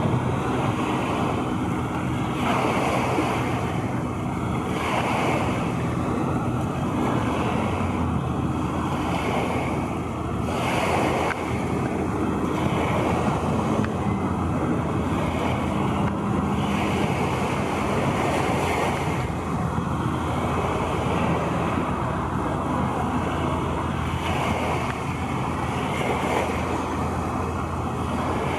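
Steady wind and water noise, with a faint low steady hum underneath.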